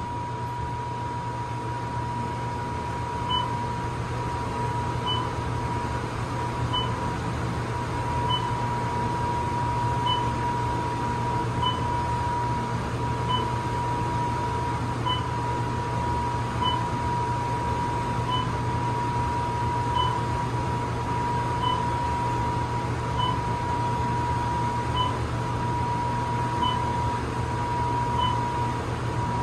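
Elevator car climbing steadily, with a steady high whine over a low hum. A short high beep sounds each time the car passes a floor, about every second and a half.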